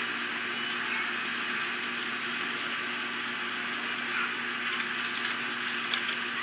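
Steady rushing outdoor background noise, with a few faint, brief bird calls about a second in and again past the middle.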